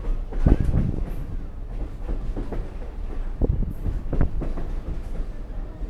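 Passenger train running on the rails: a steady low rumble with irregular clanks and knocks from the wheels and running gear.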